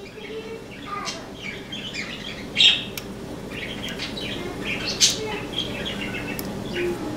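Birds chirping in short, scattered notes, with a few sharp clicks among them.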